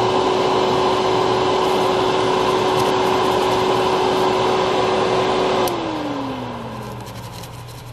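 Small electric blower running steadily with a constant hum, switched off a little over five seconds in, its hum falling in pitch as it winds down.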